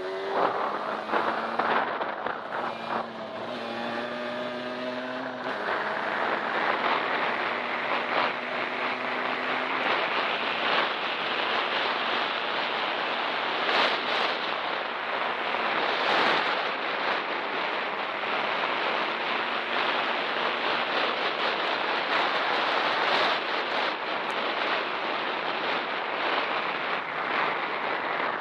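Derbi X-Treme 50cc two-stroke dirt bike engine revving, its pitch rising and falling, for the first five seconds or so. It then gives way to a steady rushing noise of wind on the microphone as the bike rides on, with a few sharp knocks near the middle.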